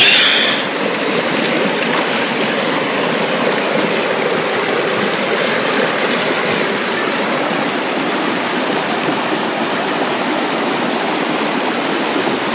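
Shallow mountain stream running over stones and pebbles, a steady rush of water, with a short louder splash right at the start as a hand dips into it.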